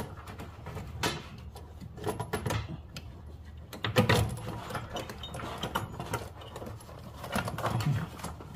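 Irregular light metallic clinks and rattles as loosened valve cover bolts on a 3.6L V6 are worked out by hand.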